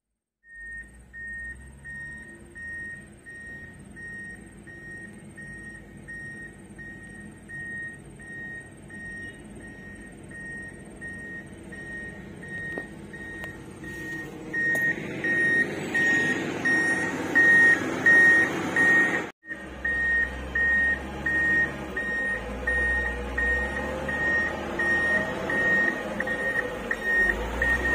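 Reversing alarm on heavy road-work machinery, a steady train of single-pitch beeps that grows louder about halfway through, over the low rumble of a diesel engine.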